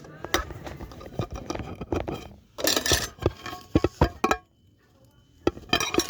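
Metal fidget spinners being handled: a run of sharp clicks and metallic clinks, with two louder clattering bursts, one about two and a half seconds in and one near the end.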